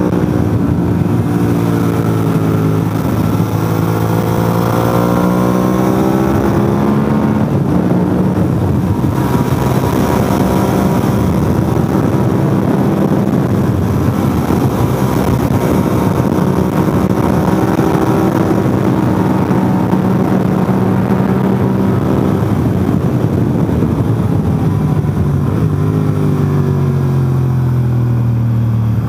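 Motorcycle engine running hard at speed, its pitch repeatedly climbing and dropping with throttle and gear changes, falling away near the end. Heavy wind rush over the helmet-mounted microphone runs underneath.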